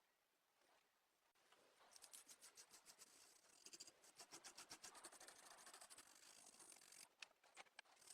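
Faint, quick scratchy rubbing strokes from hand work on a small model car, starting about two seconds in, with a few sharp clicks near the end.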